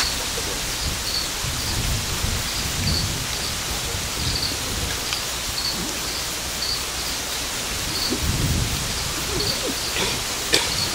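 Steady outdoor hiss with a faint high chirp repeating about once or twice a second, and low rumbling that swells a couple of times; a sharp click near the end.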